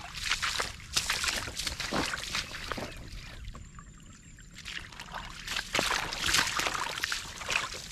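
Footsteps splashing and sloshing through shallow muddy water running over a grassy track, in uneven splashes with a pause of about a second a little before the middle.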